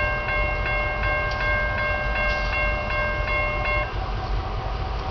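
Railroad grade-crossing warning bell ringing rapidly, about three strikes a second, then stopping shortly before the end. Under it a steady low rumble carries on throughout.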